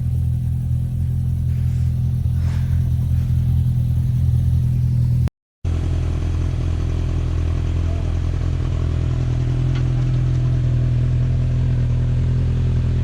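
Side-by-side UTV engine running steadily at low revs, with a brief break in the sound about five seconds in.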